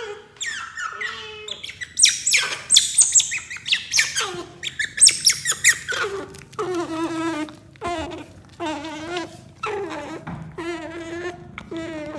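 Baby otter pups squeaking: quick, very high chirps and squeals, then a steady run of repeated wavering calls from about halfway through.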